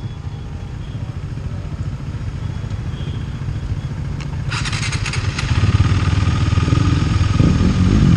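Motorcycle engine idling with a steady low beat, most likely the KTM Duke 390's single-cylinder. About four and a half seconds in a hiss joins and the engine noise grows louder, with a brief rising-and-falling rev near the end.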